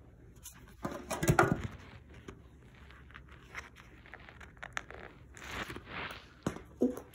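Handling noise from a toy playset and its cardboard box moved about close to the microphone: scattered clicks and knocks, a louder thump about a second in, and a rustling scrape around five to six seconds in.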